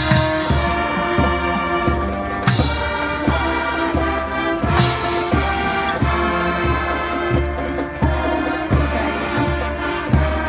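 School marching band playing a brass tune over a steady bass drum beat, with a few bright crashes in the first half.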